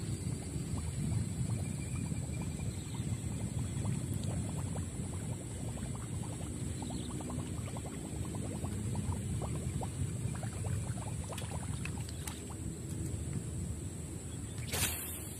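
Wind rumbling on the microphone during a frog-lure retrieve, with light ticking and small water sounds, then near the end a short sharp splash as the recast frog lure lands.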